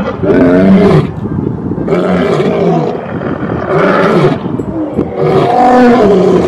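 Two male lions roaring together in a bout of deep, loud roars, one about every two seconds.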